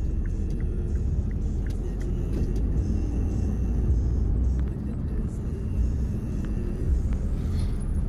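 Engine and road noise of a car heard from inside its cabin while driving, a steady low rumble.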